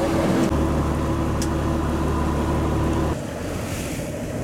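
Motorboat engine running with a steady low hum that cuts off about three seconds in, leaving the rush of wind and waves on the water.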